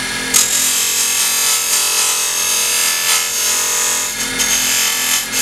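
Homemade drill-shank detail cutter with a rounded bowl-gouge grind cutting into hardwood spinning on a lathe: a loud scraping cut that starts about a third of a second in and goes on with small dips in level, over the steady hum of the running lathe.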